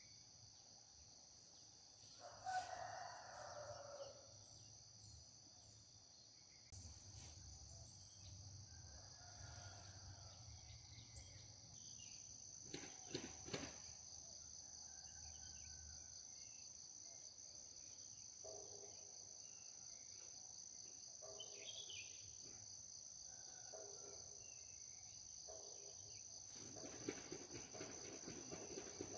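Faint rural ambience: a steady high-pitched buzz of crickets throughout, with a rooster crowing once a few seconds in and scattered faint bird calls.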